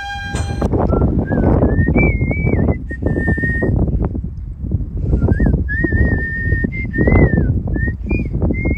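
A person whistling a slow tune: held notes that slide up and down between pitches, with short breaks between phrases. Underneath runs a loud, uneven low rumble on the microphone.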